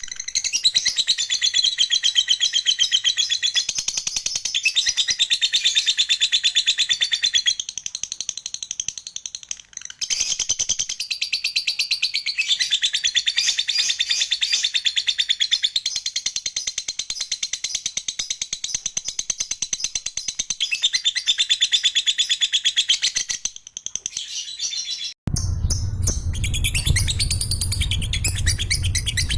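Lovebird ngekek: a long, fast, rattling chatter of high notes repeated many times a second, in long unbroken bouts. It breaks off briefly about a third of the way in and again near the end, after which a low hum runs underneath.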